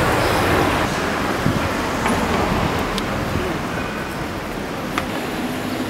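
Steady city street noise of passing traffic, with a couple of light clicks about three and five seconds in.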